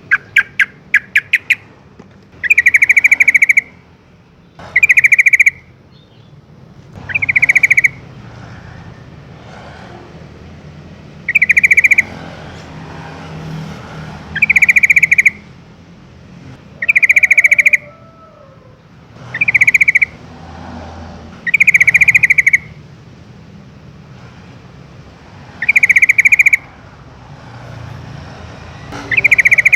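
Yellow-vented bulbul (trucukan) giving its chattering call. A quick run of short notes comes first, then loud, rattling bursts of rapid notes about a second long, repeated every two to three seconds.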